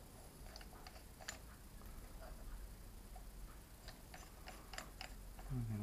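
Faint, scattered light metallic clicks and taps as a wrench and clamp are handled around a milling-machine vise set-up, with a few quick clicks together about four to five seconds in. A brief low, voice-like sound comes at the very end.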